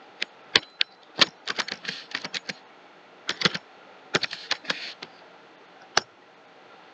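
Computer keyboard keys typed in short irregular runs, then one lone click near the end.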